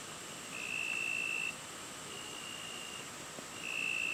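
A high, steady tone about a second long, repeated at intervals of about a second, alternately louder and fainter, over a constant faint high hiss.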